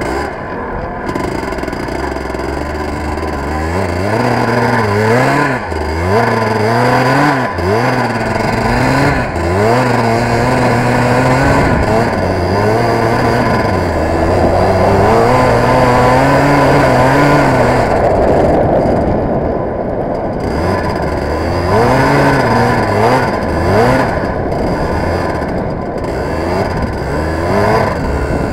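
Racing kart's engine heard from on board, its revs climbing and dropping back again and again, with a longer steady run at high revs about halfway through.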